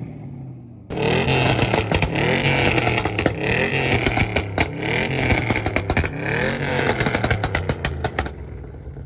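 Car engine revving hard, its pitch rising and falling again and again, with sharp crackles and pops. It starts abruptly about a second in and dies away near the end.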